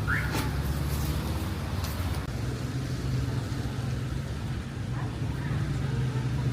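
Street traffic: vehicle engines make a steady low rumble, with a short rising chirp just after the start.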